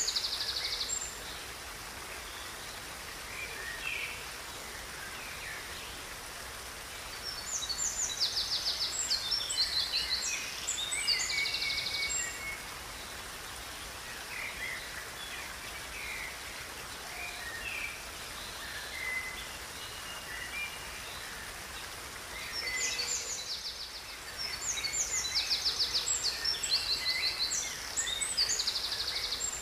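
A songbird singing in three bouts of rapid, high trills and chirps, over a steady rush of flowing river water.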